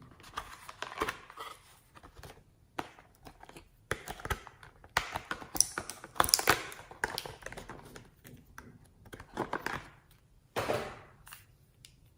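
Slime being squished and worked by hand, giving irregular bursts of sticky clicks and crackling pops.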